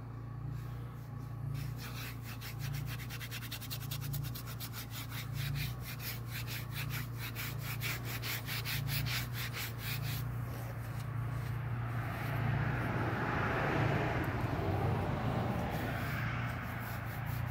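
A hand rubbing and brushing sawdust across the face of a freshly sawn pine board, the rubbing loudest in the last few seconds. A rapid even ticking runs through the first half, over a steady low hum.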